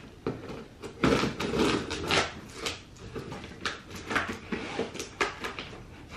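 A knife cutting along the taped top seam of a cardboard box: a run of irregular scraping strokes and taps on the cardboard, with the box flap starting to lift near the end.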